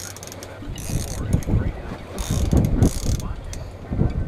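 Fishing reel clicking and ratcheting while a hooked fish is fought on a rod. Wind buffets the microphone in gusts, the loudest sound, about a second in, around two and a half seconds and near the end.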